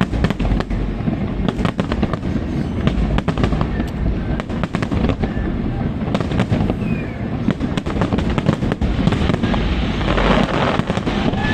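Aerial fireworks going off in quick succession, a dense run of bangs and pops, with a burst of crackling about ten seconds in.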